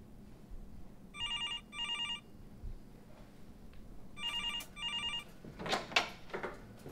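Electronic telephone ringing with a warbling trill, two double rings about three seconds apart. A few short knocks follow near the end.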